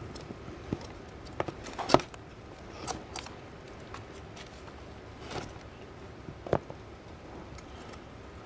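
Kittens clambering around plastic litter trays: a scattered series of light knocks, clicks and scratches, the loudest about two seconds in.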